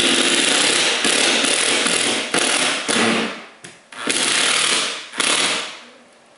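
Power drill driving the screws of a flush-mount ceiling speaker, running in two long whirring stretches: about three seconds from the start, then again for about a second and a half about four seconds in.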